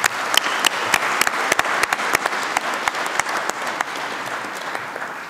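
Audience applauding, with single sharp claps standing out over the steady clapping. It fades gradually in the last second or so.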